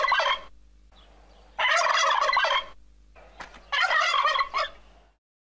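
Male turkey gobbling three times, about two seconds apart. The first gobble is already under way at the start.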